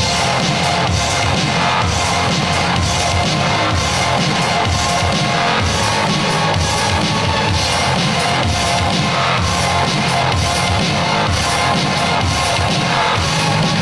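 Dance music with a steady, driving drum beat, played loud for a dance troupe's stage routine.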